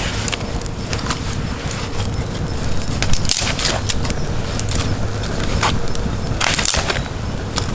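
A dry branch snapping as it is broken by hand: two clusters of sharp cracks, about three seconds in and again near the end, over a steady low rumble.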